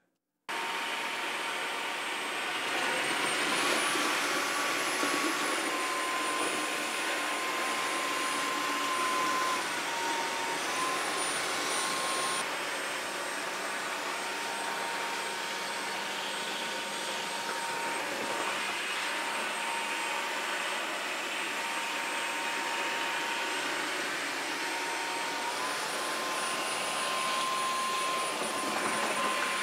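Dreametech H12 Pro cordless wet-dry vacuum running as it sucks up a spill of oatmeal and oat milk: a steady whirring with a high motor whine. It cuts in about half a second in, and the whine steps up in pitch a few seconds in, dips and recovers around ten seconds, drops again, and rises once more near the end.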